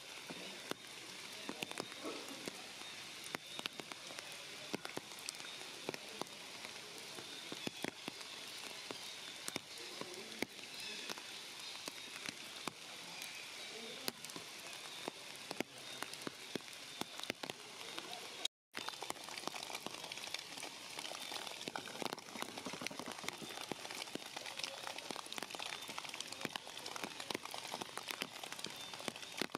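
Heavy rain falling on forest leaves: a dense, steady patter of countless small drop hits. The sound cuts out completely for a moment about two-thirds of the way through.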